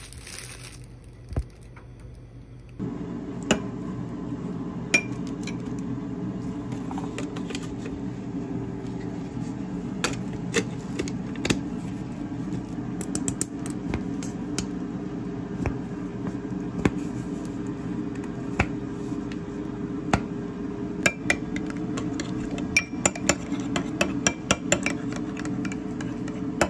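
A metal spoon clinking and scraping against a ceramic bowl as yogurt is mixed, with scattered sharp knocks from kitchen items being handled. Under it a steady low hum starts about three seconds in.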